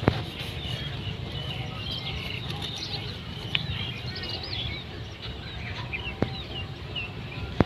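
Small birds chirping and twittering over a low rumble, with a few sharp clicks scattered through.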